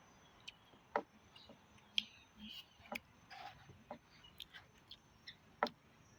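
Eating noodle soup: a series of sharp clicks and taps, roughly one a second, with short soft eating noises in between.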